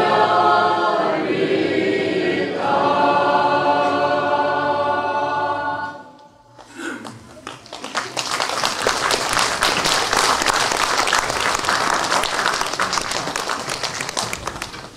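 A choir singing in several voices, the song ending about six seconds in, followed by sustained audience applause.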